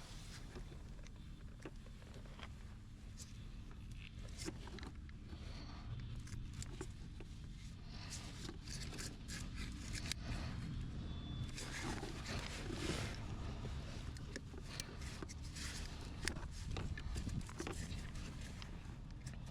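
Hands working a wiring harness and its plastic connectors: scattered light clicks and scraping, busier for a few seconds around the middle, over a low steady hum.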